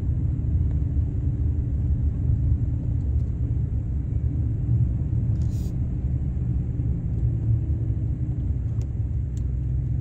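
Steady low rumble inside a moving vehicle's cabin: engine and tyres on an unpaved road.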